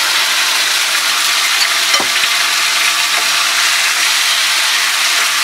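Marinated chicken pieces sizzling steadily in hot oil in a frying pan while a spatula stirs them through. One short knock about two seconds in.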